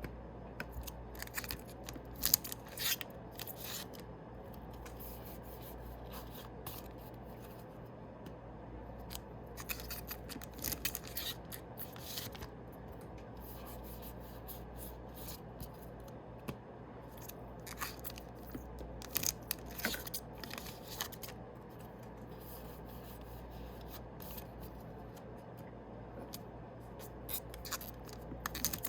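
Yu-Gi-Oh! booster packs being opened and their cards handled: clusters of crackling foil-wrapper noise every eight or nine seconds, with softer rubbing of cards in between, over a steady low hum.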